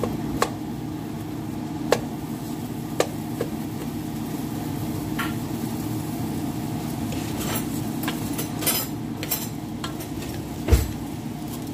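Wooden spoon stirring and scraping dry rice, diced onion and carrot around a stainless steel pot as they sauté in butter, over a light sizzle. Occasional sharp clicks of the spoon against the pot, the scraping grows busier after about seven seconds, and near the end there is one heavier knock.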